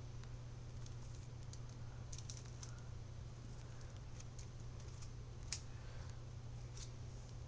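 Faint handling noise: scattered light clicks and taps, one sharper click about five and a half seconds in, over a steady low hum.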